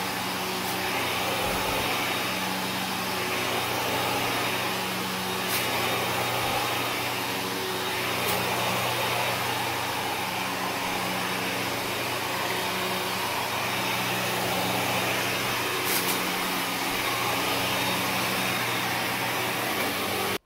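Kenmore upright vacuum cleaner running steadily while pushed over carpet, a constant motor hum with rushing airflow. A few sharp clicks cut through it as grit and debris are sucked up.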